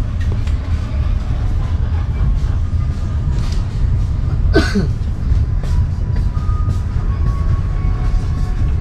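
Local passenger train running on the rails: a steady low rumble with scattered clicks, and one brief falling sound about halfway.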